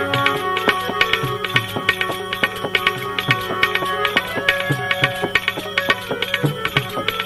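Instrumental interlude of a devotional bhajan: tabla strokes in a quick, steady rhythm over held melodic notes, with no singing.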